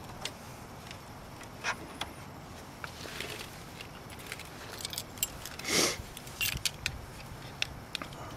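Small clicks and rattles of thin wires and a blue plastic wire connector being handled and fitted by hand, with one louder brief rustle about two-thirds of the way through.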